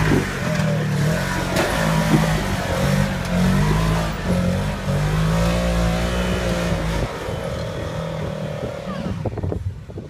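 Polaris RZR side-by-side's engine revving up and down under heavy load as it climbs over rocks, with a few sharp knocks about one and a half to two seconds in. The revving drops off about seven seconds in, leaving a quieter engine.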